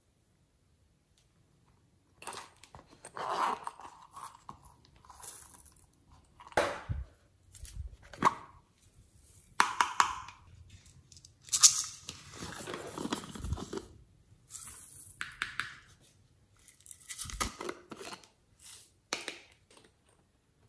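Handling noise as glitter and sequins are sprinkled onto slime: irregular rustles, crinkles and small clicks, starting about two seconds in.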